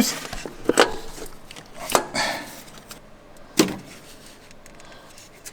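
Three sharp knocks, spread over the first four seconds, as the unbolted starter motor is worked loose from the engine.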